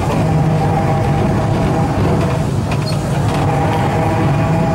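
Interior running noise of a largely original Porto heritage tram under way on street track: a steady rumble with a steady hum, and a higher whine that fades about a second and a half in and returns after about three seconds.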